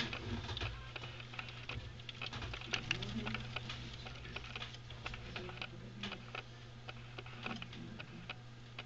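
Fancy mouse running in a 29 cm wooden Karlie Wonderland running wheel: a quick, irregular patter of small clicks from its feet and the turning wheel.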